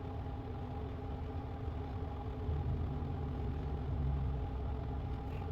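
Steady low engine hum, like a motor idling, swelling slightly for a couple of seconds in the middle.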